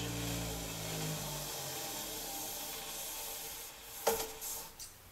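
Twice As Sharp scissor sharpening machine spinning down: its motor hum falls in pitch and dies out over about a second and a half, leaving a fading rubbing hiss. A single sharp click comes about four seconds in.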